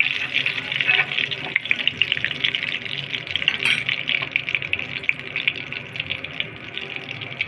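Breaded chicken balls deep-frying in hot oil: a steady, dense sizzle of crackling, popping bubbles that eases slightly toward the end.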